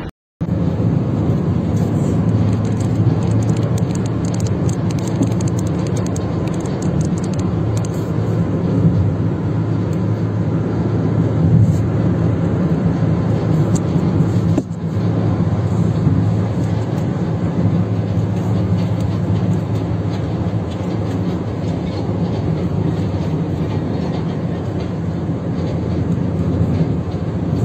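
Steady drone of a car driving at highway speed, engine and tyre noise heard from inside the cabin, with a brief dip about halfway through.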